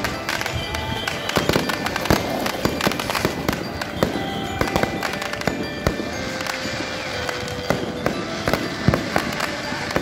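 Fireworks going off in quick succession: a dense run of sharp bangs and crackles.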